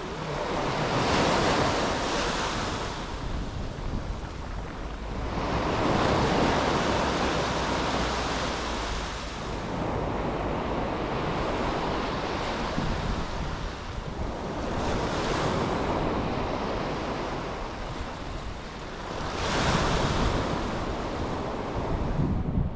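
Sea waves breaking and washing up a beach, the surf swelling and falling back about every four to five seconds, with wind rumbling on the microphone.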